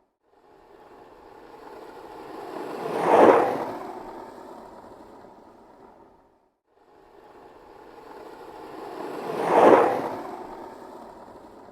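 Skateboard rolling past twice: each time the wheel noise grows louder as it approaches, peaks, then fades away, the first pass peaking about three seconds in and the second near ten seconds.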